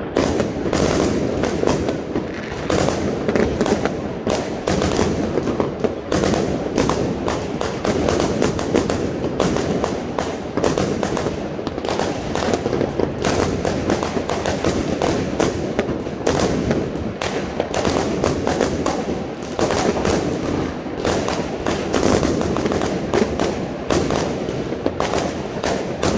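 Many fireworks and firecrackers going off at once: a constant crackle of closely overlapping bangs, several every second, with no let-up.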